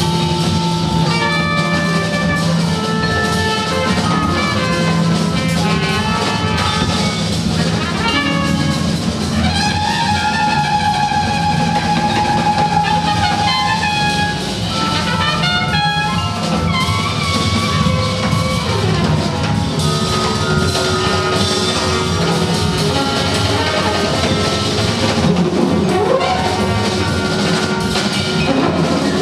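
Jazz orchestra playing: brass instruments hold long notes, layered at different pitches, over a drum kit.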